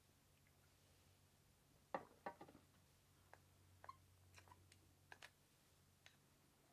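Scattered light clicks and clinks of tableware: a sake glass, a small porcelain dish and chopsticks being handled, the two loudest about two seconds in, followed by softer taps of chopsticks against the dish.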